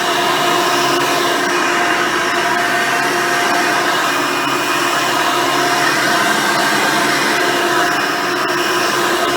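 Hoover Decade Elite Soft & Light upright vacuum cleaner running steadily: a motor whine of several steady tones over the rush of air.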